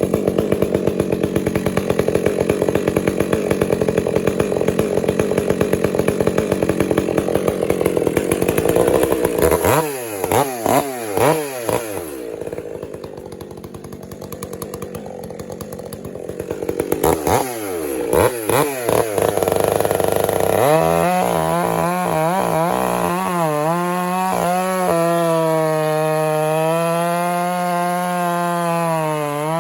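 Stihl MS 400 C two-stroke chainsaw at full throttle, cutting wood for the first nine seconds or so. It then drops back to idle with a few blips of the throttle, revs up again, and holds a steady high whine from about twenty seconds in.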